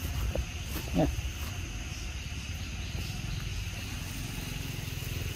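A macaque gives one short, gruff call about a second in, its pitch falling. Under it run a steady high hum and a low rumble.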